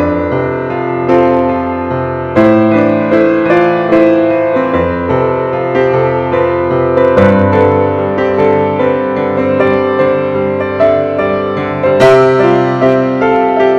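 Piano music, notes and chords struck about once a second.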